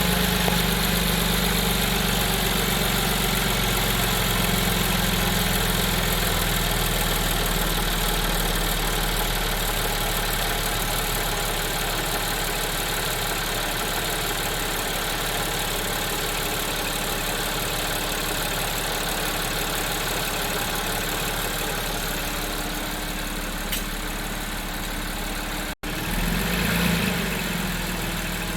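Audi 3.0 TFSI supercharged V6 engine idling steadily on a cold start, with the timing-chain noise that is believed to come from lost hydraulic pressure in one or more timing chain tensioners. Near the end the sound cuts out for an instant, then swells briefly.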